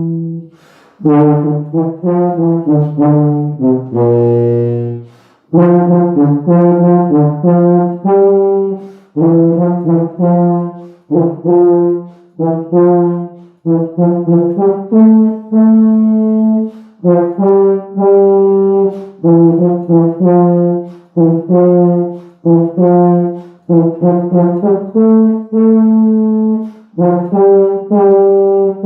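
Olds B-flat fiberglass sousaphone playing a melody in short phrases of separate notes, with brief gaps between phrases. It plays one very deep note about four seconds in.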